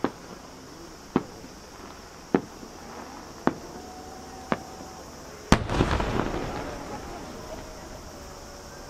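Aerial firework shells bursting: five sharp reports about a second apart, then a much louder boom about five and a half seconds in, followed by a rumbling, crackling tail that dies away over a second or so.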